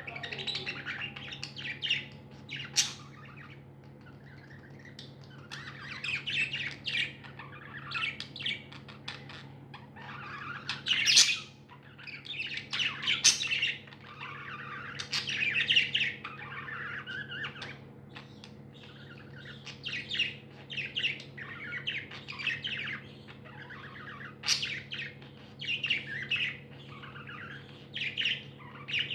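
Pet budgies chirping in bursts, with a few sharp, louder squawks among the chatter, over a steady low hum.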